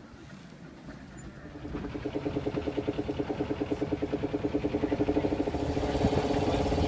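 A boat engine running with a fast, even pulse. It comes in about a second and a half in and grows steadily louder.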